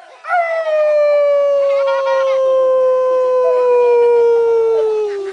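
A man's voice imitating a coyote howl: one loud, long howl lasting about five seconds, its pitch sliding slowly downward and trailing off at the end.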